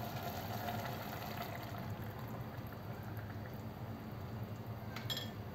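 Coconut milk poured from an opened can into a pot of diced vegetables: a steady, soft pour. A couple of light clicks come near the end.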